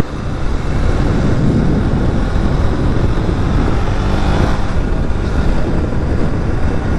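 Steady engine and road noise of a moving vehicle, with a brief faint pitched hum about four seconds in.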